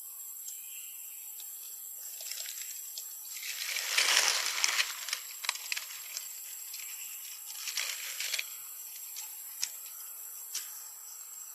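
Steady high-pitched insect drone, with a loud rustling, crackling noise swelling about four seconds in and again near eight seconds, and a few sharp clicks near the end.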